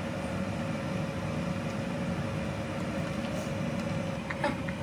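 Steady low background hum with a faint constant tone, like a fan or appliance running, and a few light clicks near the end.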